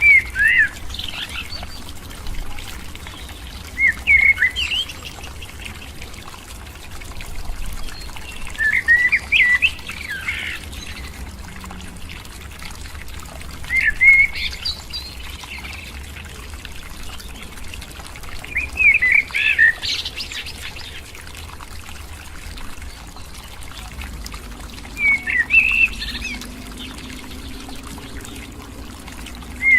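A bird singing a short phrase of quick chirping notes, about a second long, repeated roughly every five seconds over a steady background hiss.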